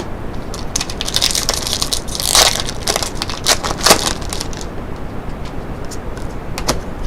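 Trading-card pack wrapper being torn open and crinkled, a dense crackling strongest between about one and four seconds in.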